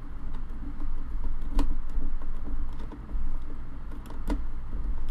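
Small hand screwdriver turning a screw into a plastic hull to fasten a small electric motor: a run of light irregular clicks and handling knocks, with two sharper clicks about a second and a half and about four seconds in.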